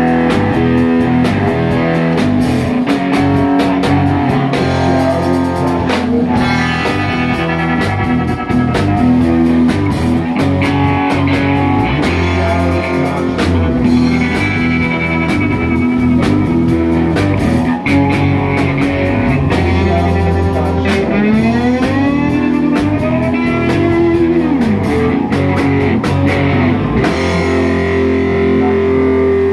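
Live rock band playing an instrumental passage: electric guitars over a drum kit, with a lead line of bending, sliding notes. Near the end the band settles into a long held chord.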